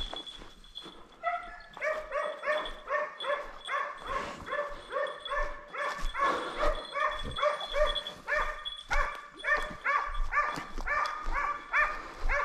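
Scent hound giving voice on a hare's trail: a steady run of repeated pitched barks, about three a second, starting a little over a second in.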